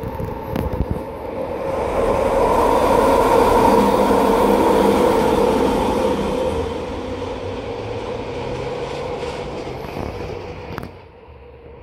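An Expo Line SkyTrain passing close by. Its sound swells over about two seconds, peaks, and fades after about six seconds into a lower steady rumble with a held tone running through it.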